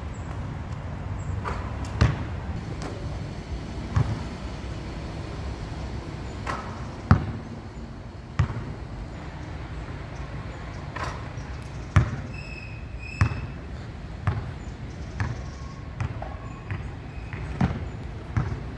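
Basketball bouncing on a hard outdoor court: about a dozen sharp, irregularly spaced thuds over a steady low background rumble.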